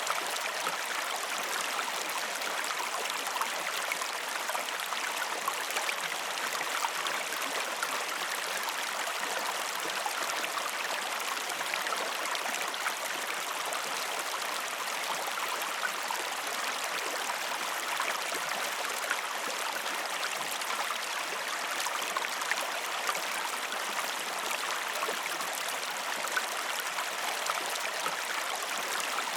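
A stream of water flowing with a steady rush. It is mostly in the middle and upper range, with no deep rumble, and keeps an even level throughout.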